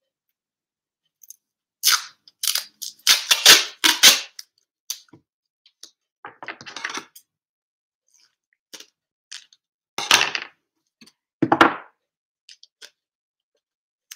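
Silver duct tape pulled off the roll in a series of short, loud rips, then scissors cutting through the tape strip with two sharp snips near the end.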